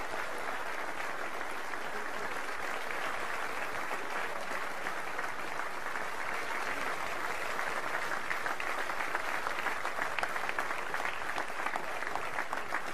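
Audience applauding steadily, a dense patter of many people clapping that grows a little fuller and louder in the second half.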